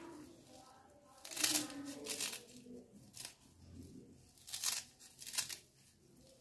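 Knife cutting through a bunch of fresh coriander held in the hand: a series of short, crisp cuts through the leafy stems, roughly one a second.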